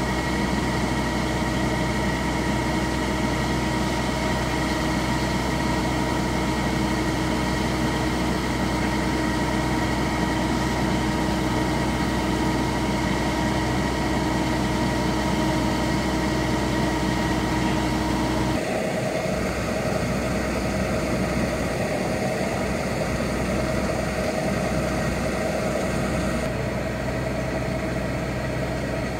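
Kubota DC-70G combine harvester's diesel engine running steadily while its unloading auger feeds rice grain into sacks. About two-thirds of the way through it cuts abruptly to a different steady engine sound, a Kubota M8540 tractor's diesel engine running at idle.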